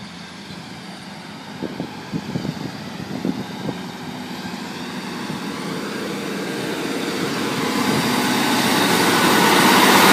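A Class 153 diesel multiple unit, coupled to a Class 156, approaching and then running past along the platform. Its engine and wheel noise builds steadily from about four seconds in and is loudest at the end, when the coaches are alongside. A few short knocks come near the start.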